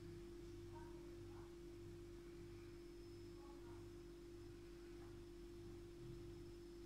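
Near silence: room tone with a faint, steady single-pitched hum.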